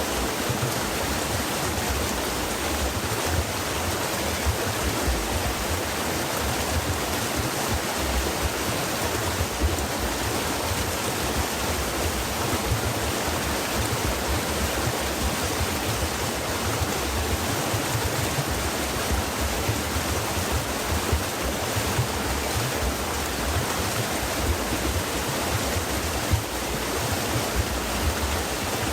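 Stream water flowing, a steady even rush of water.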